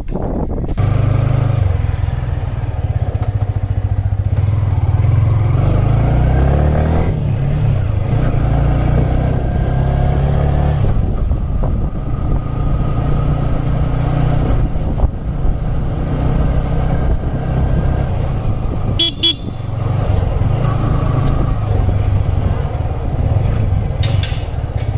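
Motorcycle engine running while riding through traffic, its pitch rising and falling with the throttle, with a short horn toot about three-quarters of the way through.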